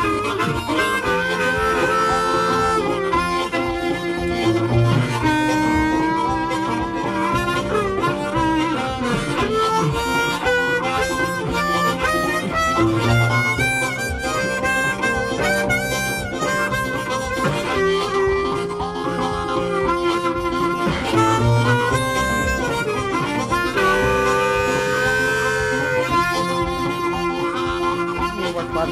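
Background blues music with a harmonica playing bending lead lines over steady low accompanying notes.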